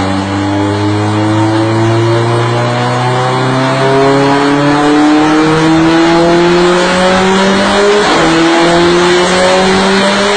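Car engine held at full throttle under load, its pitch climbing slowly and steadily as it builds revs, with a brief break about eight seconds in.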